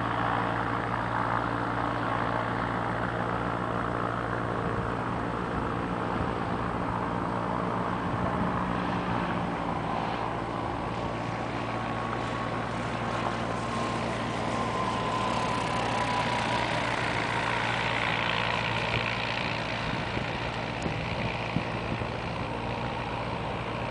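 Small single-engine propeller plane's engine droning steadily as it comes in to land. About halfway through, a tone in the drone slowly falls in pitch and a rush of noise swells as the plane passes over.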